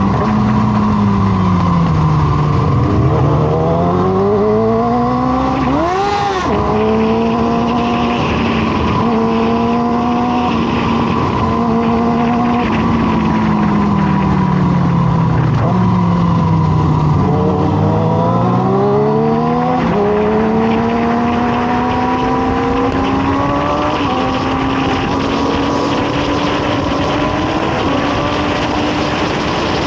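Sport motorcycle engine running at speed. Twice its pitch falls as the bike slows, then climbs again as it accelerates through the gears, with a sharp brief rev about six seconds in.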